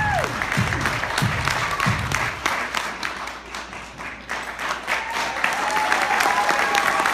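Music with a thumping beat ends about two and a half seconds in, then an audience claps and applauds.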